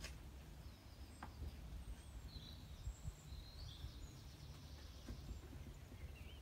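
Quiet outdoor ambience: a steady low rumble with a few faint bird chirps, mostly in the middle.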